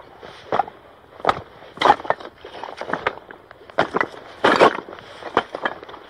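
Footsteps of boots on loose shale and rock: an uneven run of crunching, scraping steps about every half second to a second, the heaviest about four and a half seconds in.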